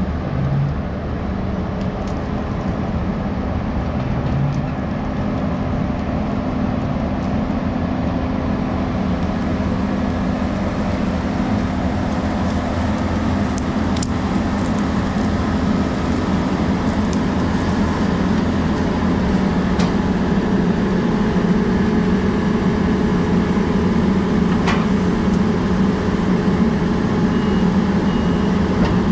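Farm tractor's diesel engine running steadily under way, a constant low drone that grows slowly louder, with a few faint clicks.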